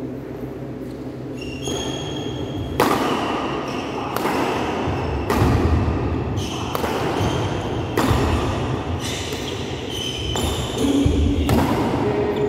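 Badminton rally: sharp racket strikes on the shuttlecock about every second or so, with shoes squeaking and feet thudding on the court mat, all echoing in a large hall.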